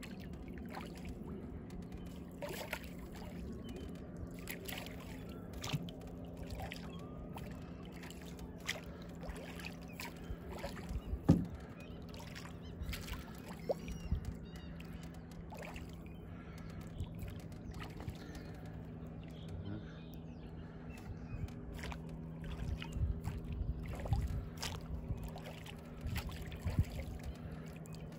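A single paddle dipping and pulling through calm water as a small boat is paddled, with drips and small splashes, scattered clicks and one louder knock about eleven seconds in. A faint steady low hum runs underneath.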